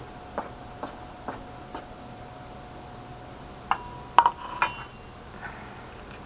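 A dog's food bowl clinking as the dog eats from it: four light clicks in the first two seconds, then three sharper clinks with a brief ring around four seconds in.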